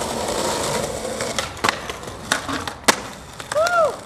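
Skateboard scraping along a stone ledge, then several sharp clacks of the board and wheels hitting the ground. A brief rising-then-falling tone sounds near the end.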